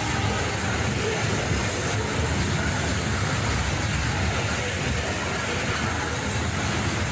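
Covered hopper cars of a freight train rolling past, their steel wheels running on the rails with a steady noise.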